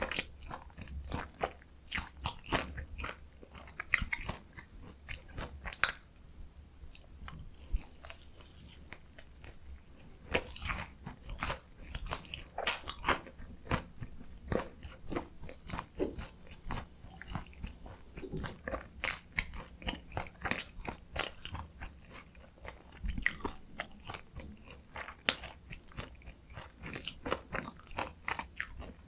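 Close-miked crunching and chewing of a fried Korean potato mozzarella corn dog, its crust of fried potato cubes crackling under the teeth in a dense, irregular run of crunches.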